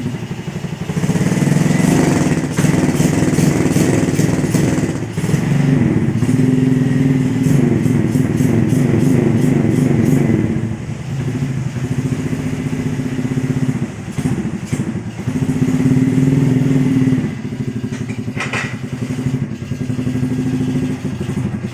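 Yamaha Jupiter four-stroke single-cylinder engine in a Honda Win motorcycle running and being blipped, rising in several revving stretches and dropping back low between them. It struggles to settle to a steady idle.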